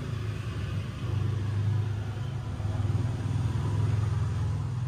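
Engine running with a steady low rumble and fine regular pulsing, getting louder about a second in.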